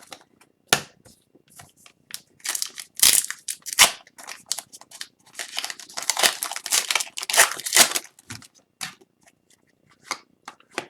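Foil wrapper of a hockey card pack being torn open and crumpled, a run of sharp crinkling and tearing rustles that is thickest in the middle, with scattered light clicks of cards being handled around it.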